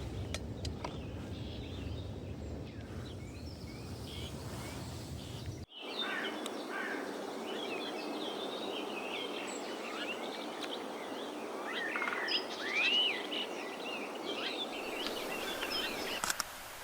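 Low rumbling noise for about the first five seconds, then, after an abrupt cut, several songbirds singing and calling in quick, varied chirps and whistles, loudest about thirteen seconds in.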